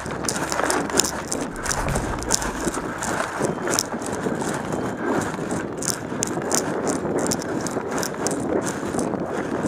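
Footsteps of a person moving quickly over dry leaf litter, crunching and rustling with each step.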